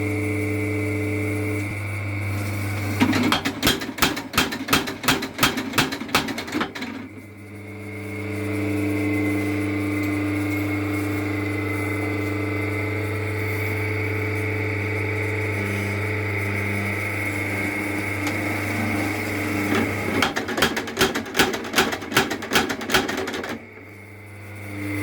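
Leaf spring power hammer with its motor running at a steady hum. It twice breaks into a few seconds of rapid repeated hammer blows, about two to three a second: once a few seconds in and once near the end.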